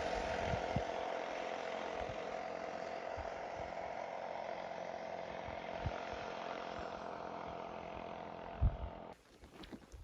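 A motor running steadily, a droning sound that slowly fades, with a few soft low thumps; it cuts off suddenly near the end.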